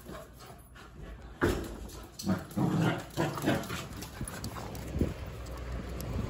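An English cocker spaniel puppy and an Australian shepherd puppy play-fighting, with a run of short, irregular dog noises starting about a second and a half in.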